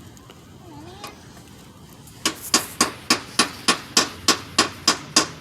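A hammer striking over and over in quick, even blows, about three or four a second, starting about two seconds in: a worker hammering while fixing something.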